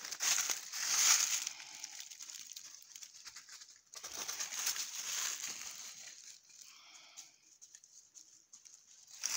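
Dry leaves and twigs crackling and rustling underfoot and against the body while walking through leaf litter and brush, in two spells: the first second and a half, then again from about four to six seconds in.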